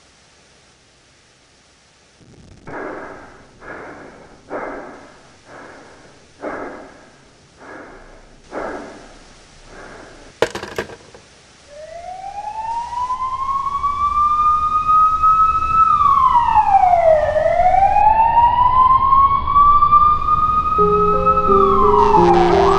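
About eight evenly spaced thumps, a little under a second apart, end in a sharp click. Then a police siren wails loudly: a slow rise in pitch, a hold, a fall, and another rise. Music comes in under it near the end.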